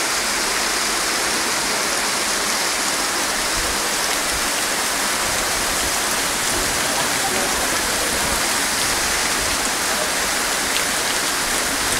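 Storm runoff rushing in a steady torrent along a flooded street, with rain falling.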